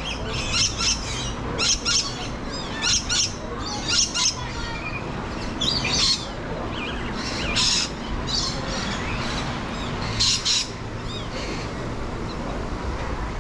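Lorikeets screeching: repeated short, shrill calls, often in quick pairs, about one burst a second, stopping about ten seconds in.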